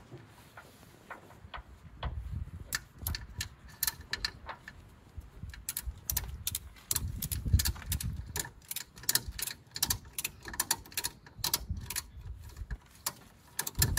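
Ratchet tie-down strap being cranked tight, its pawl clicking in quick irregular runs from about three seconds in.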